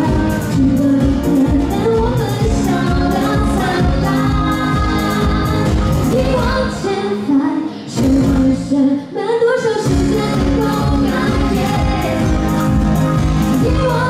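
Live band music: a woman singing over strummed acoustic guitar and a steady drum beat. The beat drops out for a few seconds in the middle, leaving voice and guitar, then comes back in.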